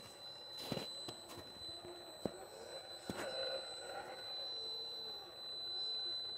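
RC rock crawler's small electric drive whining as it creeps along, its pitch wavering up and down with throttle over a steady high whine, with a few sharp clicks from the truck working over the terrain.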